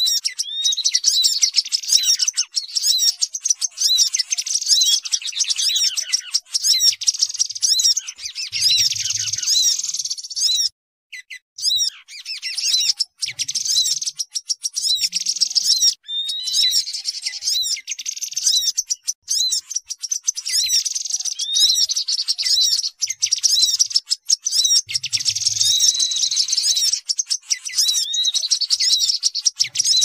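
Bird-lure recording of several small forest birds calling at once: dense, high chattering and quick repeated chirps of tepus babblers in agitated 'ribut' mode, mixed with sunbird and grey-headed canary-flycatcher calls, with a short break about eleven seconds in.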